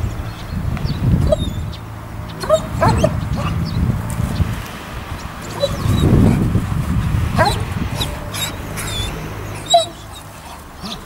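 German Shepherd giving short whines and yelps while heeling, over a low rumbling noise that swells and fades.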